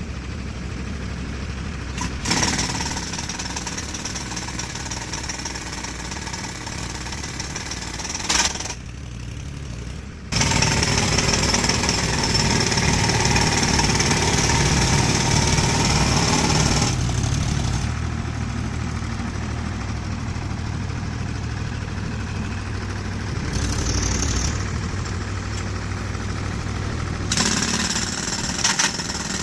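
A demolition breaker hammering rapidly on concrete over a steady engine hum. The hammering is loudest for several seconds from about ten seconds in, with a few sharper knocks elsewhere.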